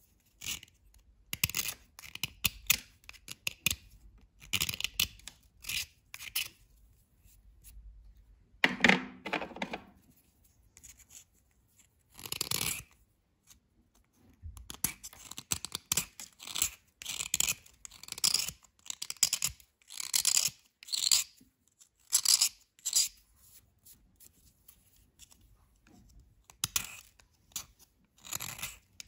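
Steel knife blade scraping and shaving a dry white bar in short, uneven strokes. About nine seconds in, one louder stroke comes that is deeper in pitch than the rest.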